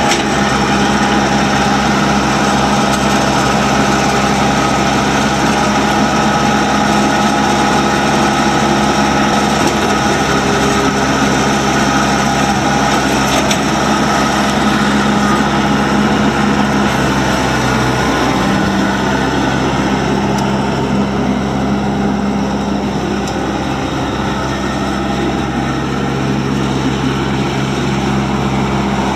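New Holland Boomer 40 compact tractor's 41 hp Mitsubishi diesel engine running steadily as the tractor is driven and its loader worked, the engine note shifting a little about two-thirds of the way through and the sound easing slightly as the tractor moves off.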